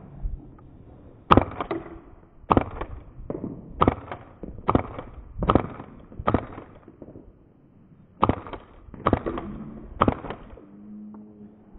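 Airsoft gas blowback pistol, a custom Hi-capa, firing single shots one after another, about ten sharp reports in two runs with a short pause in between.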